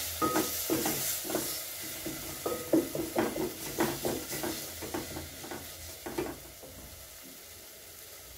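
Wooden spoon stirring onions and tomatoes frying in a metal pot, knocking and scraping against the pot over a steady sizzle. The stirring stops about six seconds in, leaving a fainter sizzle.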